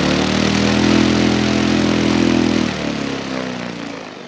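Large homemade brushless (BLDC) motor spinning a propeller at full power: a loud, steady, pitched hum with a rush of air. About three seconds in, its pitch and loudness fall as it is throttled back and spins down.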